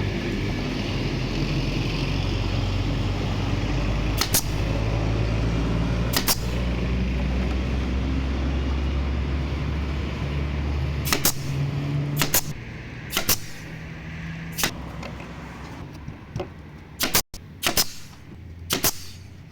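A motor running with a steady low hum that drops off about eleven seconds in, with a series of sharp clicks or knocks, most of them in the second half.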